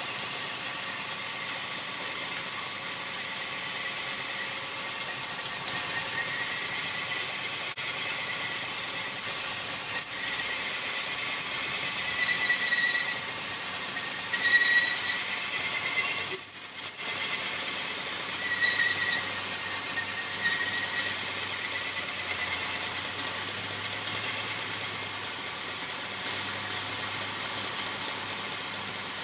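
Cylinder honing machine working a bore of a Perkins 248 engine block: the abrasive stones grind against the cast-iron bore with a steady high-pitched whine, swelling louder a few times, as the bore is brought to its final size.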